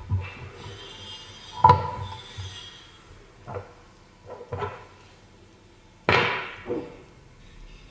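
A series of about seven sharp knocks and clunks at irregular intervals, as of hard objects being set down or handled on a hard surface; the loudest comes about six seconds in and rings out briefly.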